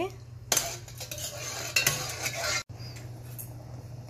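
Metal spoon stirring and scraping in a stainless steel saucepan of water with rice and flower petals, with a couple of sharper clinks against the pan. About two and a half seconds in it breaks off, and a quieter steady simmering of the pot follows.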